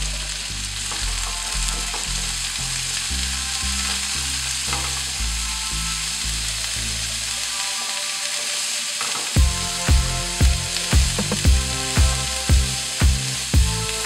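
Chopped cauliflower and garlic frying in olive oil in a nonstick pan, a steady sizzling hiss, stirred with a silicone spatula. Background music underneath with a bass line, which picks up a steady beat about twice a second from about nine seconds in.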